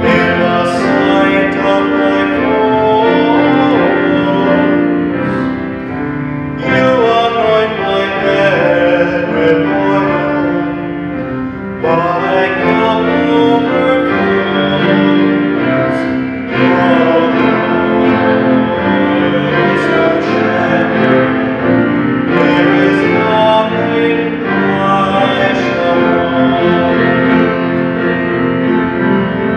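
A solo singer, a cantor, sings a psalm setting with keyboard accompaniment, in phrases several seconds long. This is the responsorial psalm sung between the readings of a Catholic Mass.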